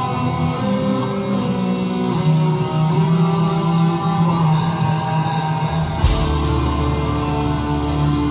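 Black metal band playing live, distorted electric guitars holding slow chords; a deep bass comes in about six seconds in.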